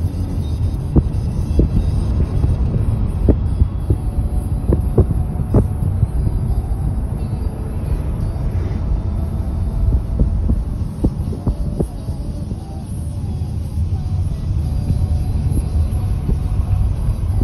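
Road and engine rumble of a moving vehicle heard from inside the cabin, with scattered short knocks and rattles from bumps in the road.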